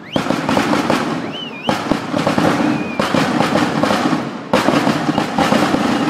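Fireworks display: salvos of rapid crackling firecracker reports, a fresh loud burst starting about every one and a half seconds, with a few short wavering whistles among them.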